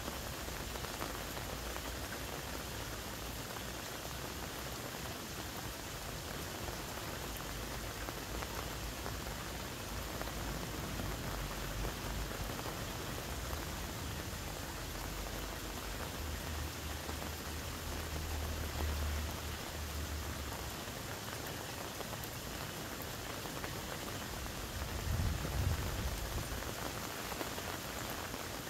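Steady rain, a dense even patter, with a few low rumbles, the loudest about 25 seconds in.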